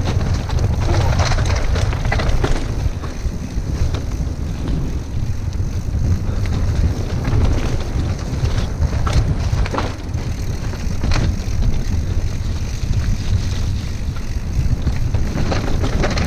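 Mountain bike ridden fast down a dirt trail: a steady wind rumble on the microphone, with scattered sharp knocks and rattles from the bike over bumps.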